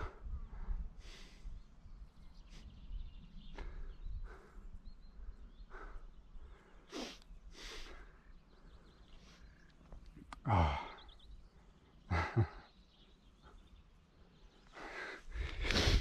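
Footsteps on a dry, dusty dirt path, irregular and soft. About two-thirds of the way in, two short low sighs, falling in pitch, a couple of seconds apart.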